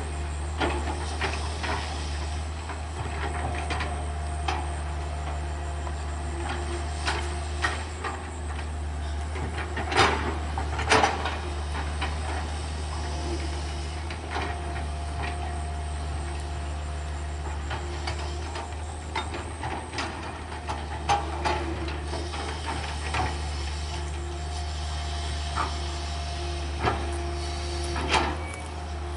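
CAT 320D hydraulic excavator's diesel engine running steadily as the arm and bucket work an earth bank, with a whine that comes and goes. Sharp clanks and knocks from the bucket and linkage are scattered through it, the loudest about ten and eleven seconds in.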